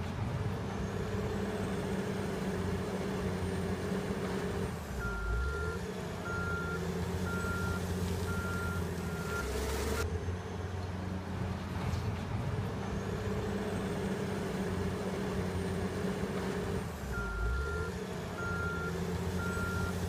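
Caterpillar 980 wheel loader's diesel engine running steadily while its reversing alarm beeps in two spells: one about five seconds in lasting four seconds or so, and another near the end. A faint high whine rises and levels off twice over the engine.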